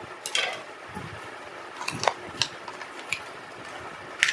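Plastic packaging being handled: the opened pouch crinkles and small plastic tubs click as they are pulled out, in a handful of short sharp crackles, the loudest near the end.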